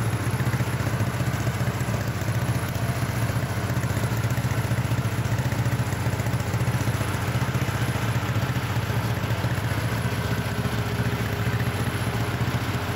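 John Deere 420 crawler's two-cylinder engine idling steadily, with an even low pulse and no change in speed.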